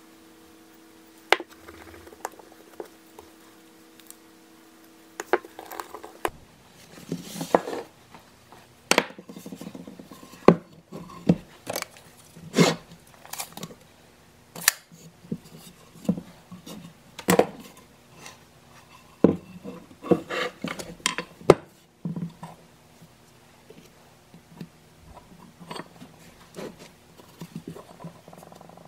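Hard objects handled on a workbench: a faint steady hum with a few light clicks, then from about six seconds in the hum stops and irregular sharp clicks, knocks and short scuffs follow as a tape measure, a wooden board and an old wooden hatchet handle are moved about and set down.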